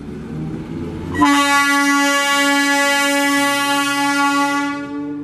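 EMU local train passing at speed, its wheels and running gear rumbling, then sounding one long, steady horn blast on a single note, starting about a second in and lasting about four seconds.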